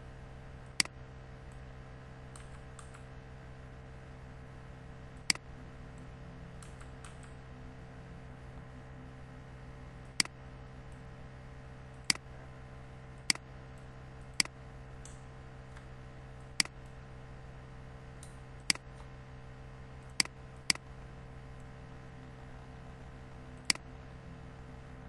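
Computer mouse clicking: about a dozen sharp single clicks at uneven intervals, with a few fainter ticks, over a steady low electrical hum.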